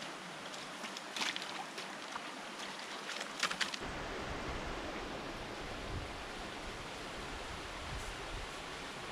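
Shallow rocky river rushing and rippling over stones, a steady wash of water with a few sharp splashes and ticks in the first few seconds. A low rumble joins about four seconds in and holds on.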